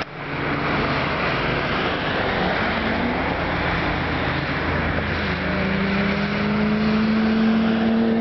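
Cars lapping a wet race track: a steady rushing of engines and tyres, with one car's engine note coming in clearly about five seconds in and rising slowly as it approaches under power.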